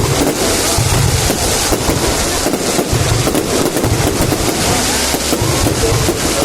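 Fireworks going off in a continuous dense crackle, with low rumbles coming and going.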